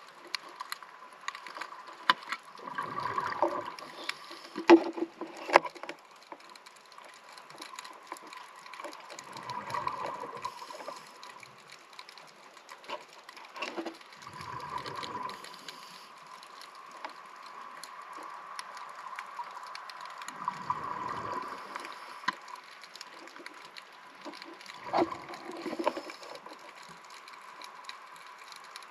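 Scuba diver breathing through a regulator underwater: five exhaled bubble gushes, about every five to six seconds, with quieter breathing between and a few sharp clicks.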